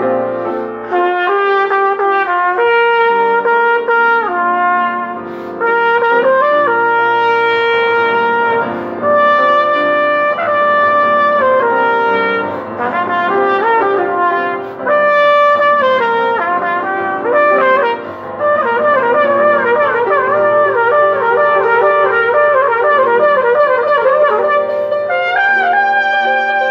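Trumpet playing a slow line of long held notes in phrases broken by short breaths, then, from about two-thirds in, a fast wavering, trill-like figure, ending on a held high note.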